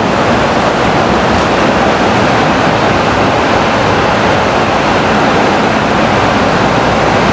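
Steady road roar from inside a moving car in a road tunnel: tyre and engine noise on a wet road. It is loud and even, with no breaks.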